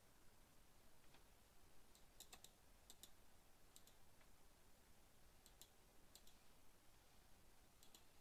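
Faint computer mouse clicks: a handful of short, sharp clicks, mostly in quick pairs, spread over near-silent room tone.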